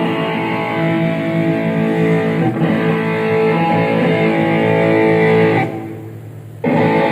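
Guitar played through the PA during a band sound check: strummed chords that ring on. They fade out about five and a half seconds in, and a fresh chord comes in about a second later.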